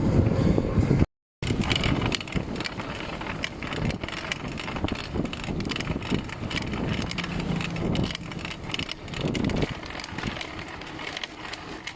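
Bicycle being ridden, with irregular clicks and rattles over wind noise on the microphone. A brief cut to silence comes about a second in.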